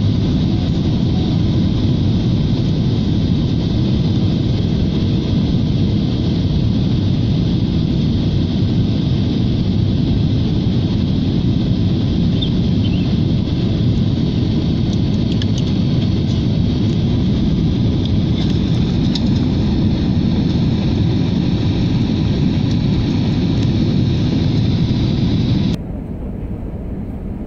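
Steady noise of a jet airliner's engines and rushing air heard inside the passenger cabin. It cuts off suddenly near the end.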